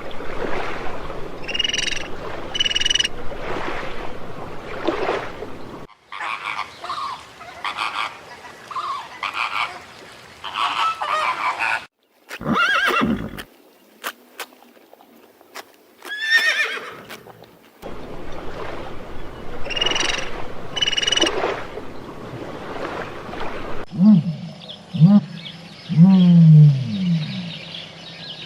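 A series of different animal calls from short recordings spliced one after another, with abrupt changes every few seconds. The calls are pitched cries, some falling in pitch.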